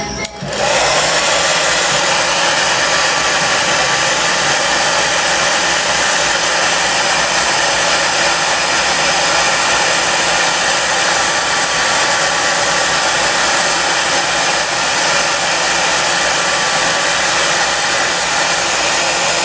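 An electric blower running steadily with a faint whine, switched on about half a second in.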